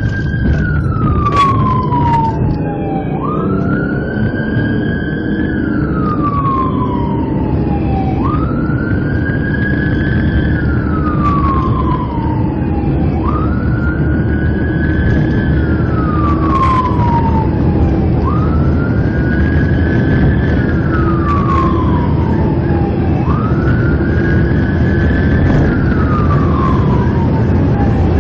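Police car siren on wail, heard from inside the patrol car as it drives to a call. Each cycle rises quickly and falls slowly over about five seconds, about six times in all, over steady engine and road noise.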